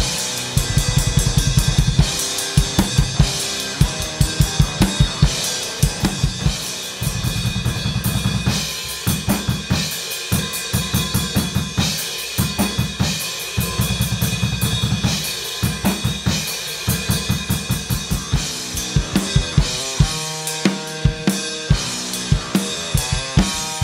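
Heavy metal drumming on an acoustic drum kit: snare and cymbals over bursts of very rapid bass drum strokes, three times, with the pattern changing near the end.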